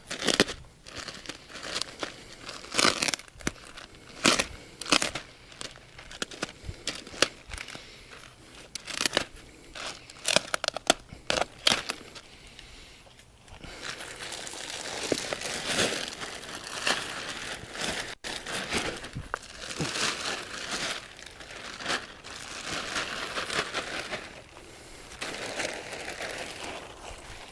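Plastic bag of mulch being handled and torn open: sharp crinkling and crackling of the plastic for the first dozen seconds. It gives way to a denser, steadier rustling as the mulch is poured out of the bag onto the bed.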